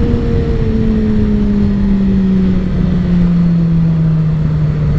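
Yamaha R6 sport bike's inline-four engine running under way, its steady tone slowly falling in pitch as the revs drop, over a dense low rush of road and wind noise.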